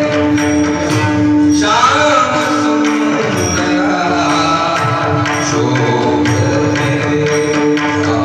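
Indian devotional music: a voice sings a gliding melodic line over a held drone note, with hand-drum percussion keeping the rhythm.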